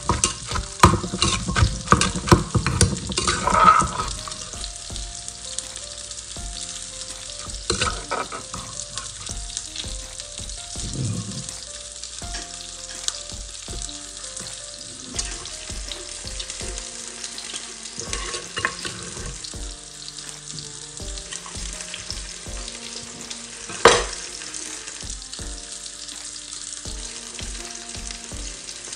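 Wooden pestle and spoon working shredded kohlrabi salad in a mortar: a fast clatter of pounding and stirring for the first few seconds, then slower scrapes and taps as the salad is tossed, with one sharp knock about twenty-four seconds in. A simple melody plays softly in the background.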